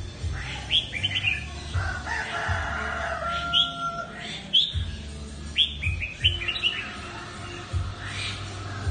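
Red-whiskered bulbul with a pale colour mutation singing: several short phrases of quick, rising and falling whistled notes, over a steady low rumble.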